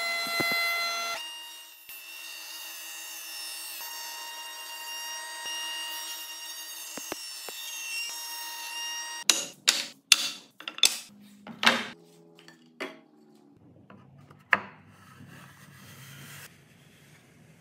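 Spindle moulder (shaper) running with a steady whine, loudest in the first second as it cuts a groove into a timber block, then spinning on. From about nine seconds in, a quick run of sharp wooden knocks as the grooved timber pieces are set down and fitted together, with one more knock a couple of seconds later.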